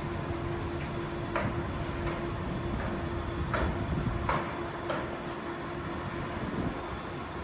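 Street ambience of a city plaza: a steady machine hum over a low traffic rumble, with a few sharp clicks or knocks scattered through it.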